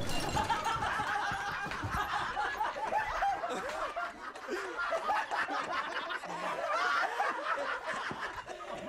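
Several men laughing hard together, overlapping chuckles and cackles.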